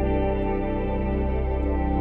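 Background music: slow ambient new-age music with long held chords, the chord changing near the end.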